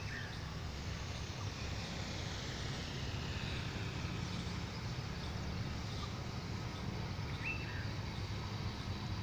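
Steady low drone of a Pakistan Railways HBU20 diesel-electric locomotive's engine as the train pulls out and approaches. Two short high chirps come through, one at the start and one about seven seconds in.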